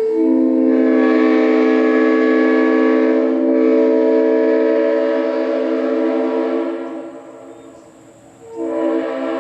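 Tampa-built Leslie RS5T five-chime train horn sounding a long chord blast of several seconds that tails off, then a second blast starting near the end.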